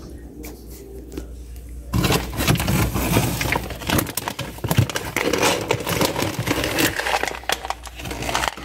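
A plastic bag of dry cat food crinkling and rustling as it is handled, with kibble rattling. The rustling starts about two seconds in, after a quieter start.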